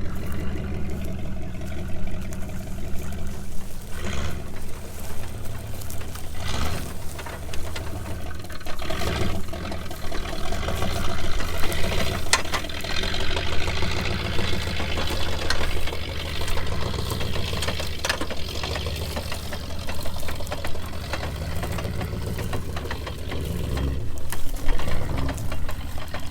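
Off-road truck engine running steadily under light throttle, growing louder for a moment near the end, with scattered clicks and knocks over it.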